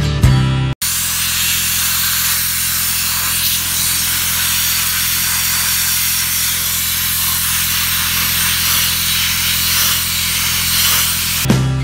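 Sandblasting of a Massey Ferguson 35's cast-iron transmission and rear axle housing: a steady hiss from the blast nozzle with a low hum underneath. It cuts in abruptly just under a second in, replacing rock music, and the music comes back near the end.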